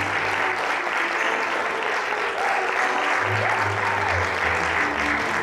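Audience applauding steadily, with ballet music playing faintly underneath.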